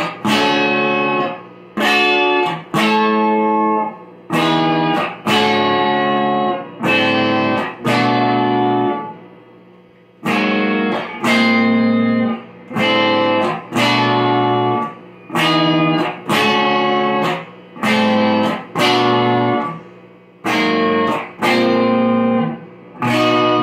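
Fender Telecaster electric guitar strumming a pop chord progression built on major-seventh and slash chords. Each chord is struck and left to ring for about a second, with short breaks between, and a longer pause about nine seconds in.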